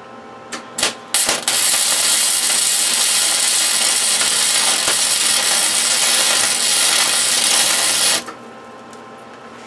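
Wire-feed welder arc plug-welding a steel nut: a few short sputtering starts, then a steady arc for about six and a half seconds that cuts off suddenly.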